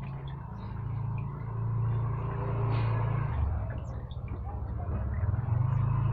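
Washing machine motor running with a low hum that drops in pitch about three seconds in and climbs back near the end, as the wash cycle turns.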